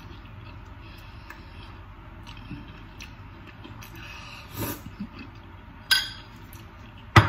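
Quiet eating: a metal spoon clinks sharply against a dish twice, once about six seconds in and more loudly near the end, with faint chewing sounds in between.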